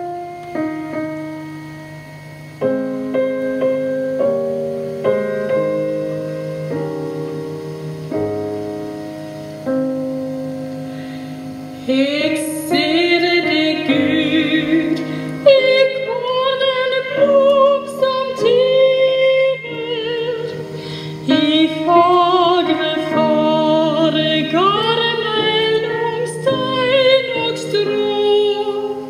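Solo piano playing a slow introduction of sustained chords, then a woman's voice enters about twelve seconds in, singing a Nynorsk religious song with vibrato over the piano accompaniment.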